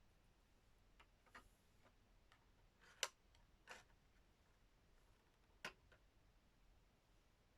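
Near silence broken by a handful of small sharp clicks, the loudest about three seconds in, from handling a plastic toy figure and its packaging.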